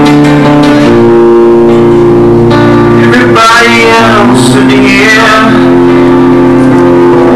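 Live acoustic guitar ringing out held chords, with a voice singing a long, bending note from about three seconds in.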